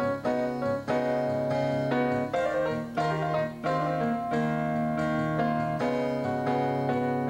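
Electronic keyboard played with a piano sound: chords and a melody, notes struck about every half second at first, then held longer toward the end.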